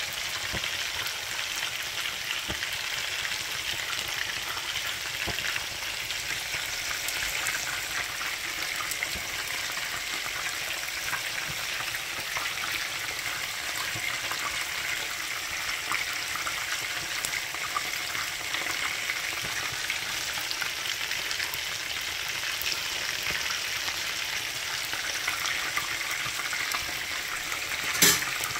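Chicken drumsticks sizzling in hot oil in a frying pan: a steady sizzle with many small crackling pops. One sharp knock near the end.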